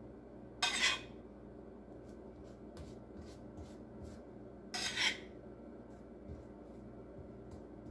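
Metal offset spatula scraping softened butter off a plate and spreading it over rolled-out dough. There are two short, loud scrapes about four seconds apart, with faint taps and soft smearing strokes between them.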